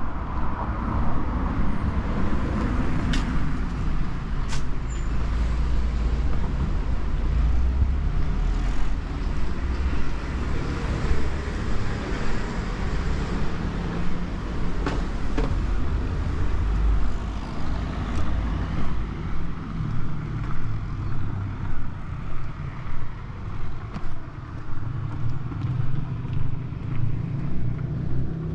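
Road traffic on a city avenue: cars passing with a steady low rumble.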